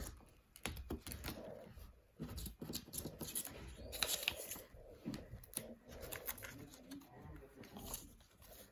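Pages and plastic envelope sleeves of a ring binder being turned and handled: paper and plastic rustling, with many small clicks and taps.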